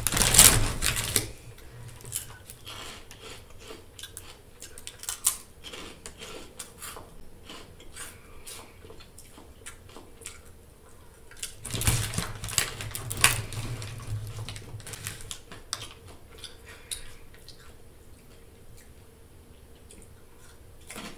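Plastic snack bag of Flamin' Hot Funyuns crinkling as a hand reaches in, loudest in the first second and again about 12 seconds in. In between come crisp crunches of the fried onion-flavoured rings being bitten and chewed.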